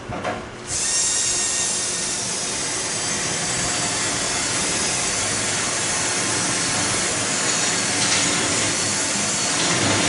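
Electric drill starting under a second in and running steadily with a high whine, drilling out spot welds in the steel sheet metal of a pickup's wheel well, after a couple of short knocks at the start.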